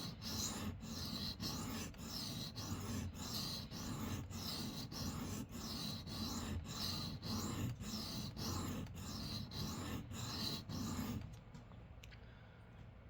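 Steel pocket-knife blade (Civivi Vision) scraping back and forth on a 325-grit sharpening stone, an even rasping rhythm of about two strokes a second that stops about eleven seconds in. The strokes are grinding a fresh edge on the dulled blade, nearly apexed on this side.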